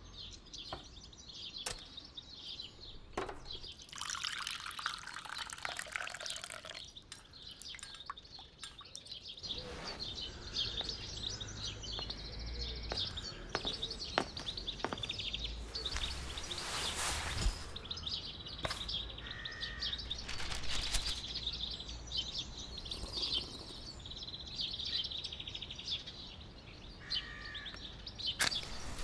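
Household foley laid over birds chirping: water running or pouring in two bursts, a few seconds in and again past the middle, with scattered clicks and knocks of small objects being handled. A low hum comes in about a third of the way through.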